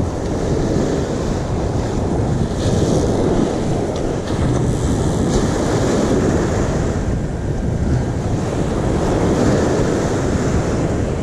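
Steady wind buffeting the microphone over breaking surf on a beach.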